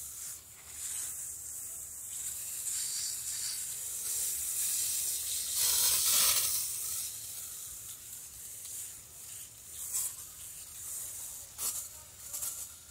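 Water from a garden hose spray wand hissing and spattering onto soil and plants in a raised bed. The spray swells loudest about six seconds in.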